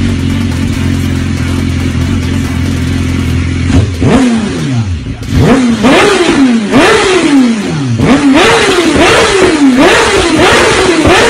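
Sport bike engine idling steadily, then revved again and again from about four seconds in, each rev a quick rise and fall in pitch.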